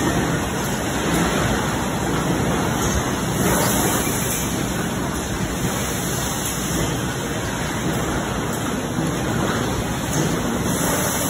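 Plastic sheet line running: a steady machine noise with no distinct beat or tone.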